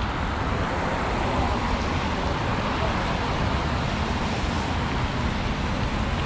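Steady city street traffic noise from passing cars.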